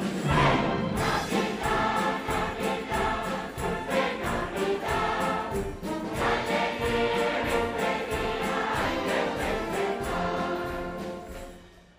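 Children's and adult choirs singing a medley of Spanish Christmas carols (villancicos) with instrumental accompaniment. The music fades away over the last second or so.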